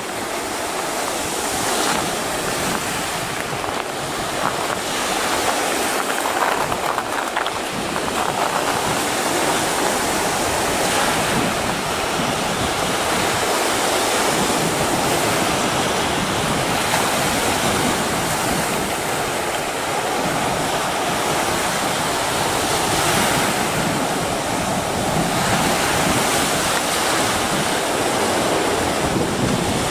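Sea surf: choppy waves breaking around rocks and washing onto the shore, a steady rushing wash.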